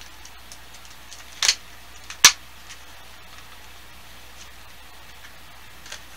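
A few sharp plastic clicks and crackles, the two loudest about a second apart near the middle: a clear plastic bait package of soft swimbaits being opened.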